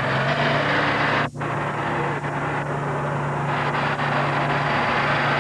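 International Harvester Farmall tractor engine running hard under full load, pulling a weight-transfer sled: a steady low drone, with a brief dropout in the recording about a second in.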